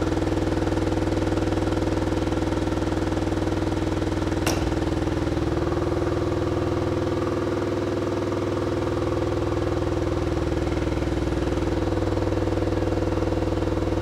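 SKAR SDR 12-inch subwoofer playing a 20 Hz test tone at about 500 watts in free air: a steady, loud low drone with many overtones from the cone's long travel. One sharp click about four and a half seconds in.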